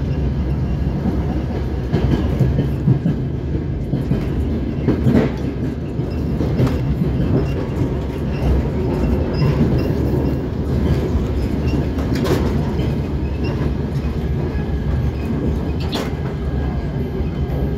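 DR1A diesel multiple unit running along the line, heard from inside the carriage: a steady low rumble of engine and wheels, with a few sharp clicks from the wheels over the track.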